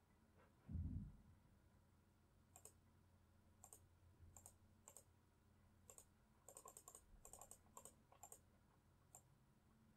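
Faint, irregular clicking of computer use, about a dozen clicks with some in quick runs. There is one low thump about a second in.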